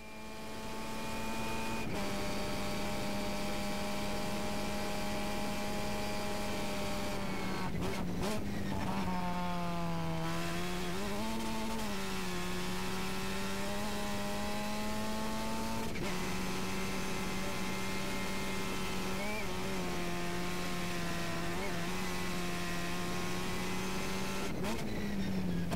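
Formula Russell/Mazda open-wheel race car's Mazda rotary engine at high revs, heard from the cockpit. The note holds mostly steady, briefly cuts out and then dips and rises again about a third of the way through, and drops in pitch near the end.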